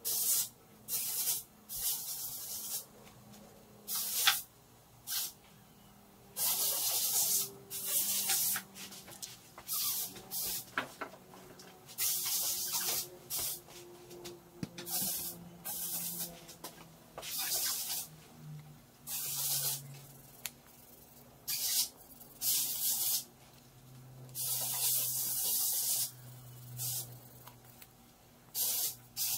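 Short bursts of hissing spray, about two dozen, each lasting from a split second to about two seconds, starting and stopping abruptly.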